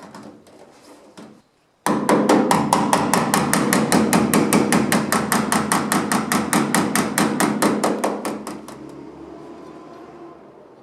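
Hand hammer beating sheet steel, a fast even run of blows about seven a second lasting some seven seconds, after a few light taps; the metal rings briefly as the blows stop.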